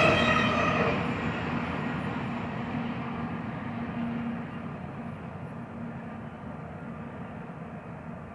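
Intermodal freight cars rolling away on the rails, a steady rumble that fades as the end of the train recedes. A high ringing squeal dies out in the first second.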